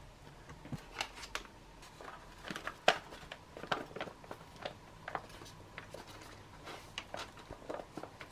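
Handling of ration food pouches: quiet, intermittent rustling of plastic and foil packaging with scattered sharp clicks and taps.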